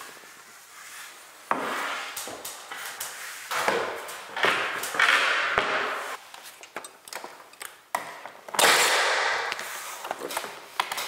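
Wooden tongue-and-groove ceiling boards scraping and rubbing as they are pushed and slid into place, in several stretches of a second or two, with scattered short knocks and clicks in between.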